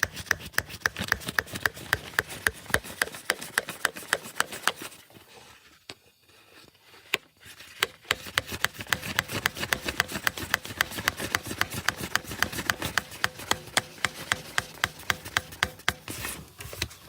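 A hammer tapping rapidly and steadily on a screwdriver driven down between an engine block and its cylinder sleeve, metal on metal, chipping the old sleeve so it peels away. The blows stop for about three seconds partway through, then resume at the same fast rate.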